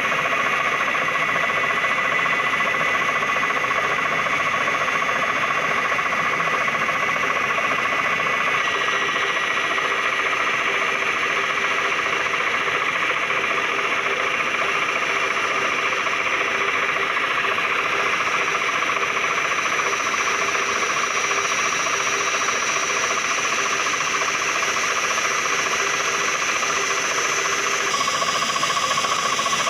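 CNC milling machine running steadily, with a high whine from the spindle and cutter over a constant machining noise. The whining tones step to new pitches three times.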